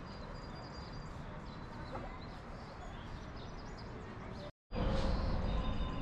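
Outdoor ambience of birds chirping over steady low background noise, with faint voices of people. About four and a half seconds in the sound drops out for an instant at an edit, and the background comes back louder.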